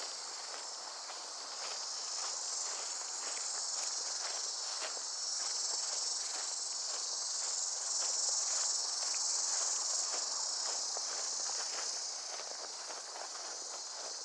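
A steady, high-pitched chorus of insects, swelling louder in the middle, over regular footsteps of a person walking, about two steps a second.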